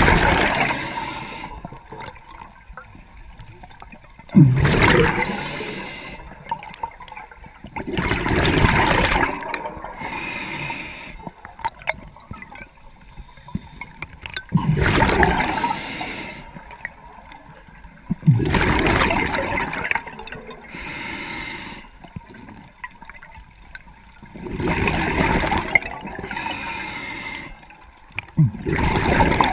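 Scuba diver breathing through a regulator underwater: each breath is a hiss of inhaling and a gush of exhaled bubbles, repeating every four to six seconds.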